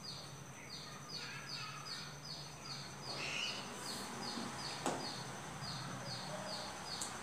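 A small bird chirping steadily in the background, with short, slightly falling chirps about three a second. A faint marker scratches on a whiteboard, and there is one sharp tap about five seconds in.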